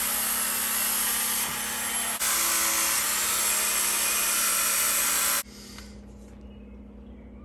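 Handheld electric belt sander with a 220-grit belt grinding the steel edge of an axe, a steady grinding hiss as the edge is dressed to take off the burr. It dips briefly about two seconds in and stops abruptly about five and a half seconds in.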